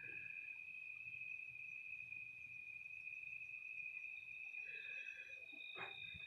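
A faint, steady high-pitched tone held without a break, with a short knock near the end.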